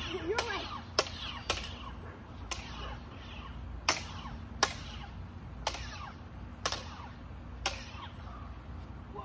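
Toy lightsabers' plastic blades clacking together in a duel: about nine sharp hits at an uneven pace. Faint swooping sound effects from the sabers follow some of the hits.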